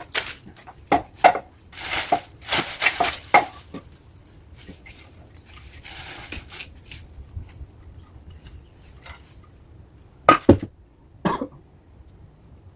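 Scattered rustles and knocks from throwing a rope up into a tree's branches, with a couple of sharp knocks about ten seconds in.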